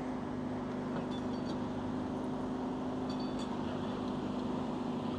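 Steady outdoor street noise: a low, even hum with wind and traffic noise, and faint high ticks about a second in and again about three seconds in.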